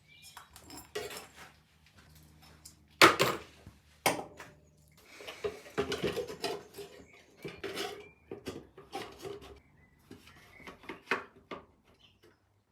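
Knocks, clatter and rattling of parts being handled as an air filter is fitted into a Kawasaki Bayou 220 quad bike's airbox, with a sharp knock about three seconds in.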